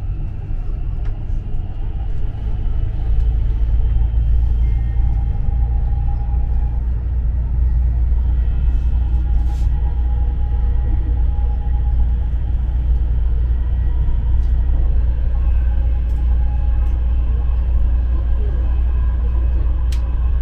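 Dubai Metro train running at speed along its elevated track, heard from inside the front car: a steady low rumble, with a faint whine coming and going.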